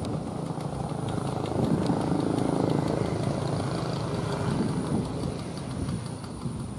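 Small engine of a homemade three-wheeled scooter running as it drives past. It is loudest about two seconds in and fades as the scooter moves away.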